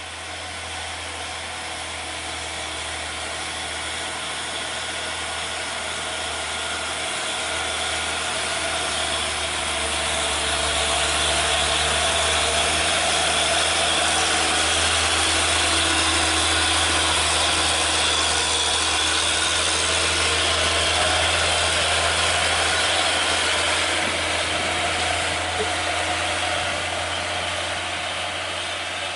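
Diesel engine of a heavy Hino truck running at steady revs as it approaches and passes, with tyre hiss on the wet road. It grows louder over the first ten seconds, holds, then fades as the truck moves away near the end.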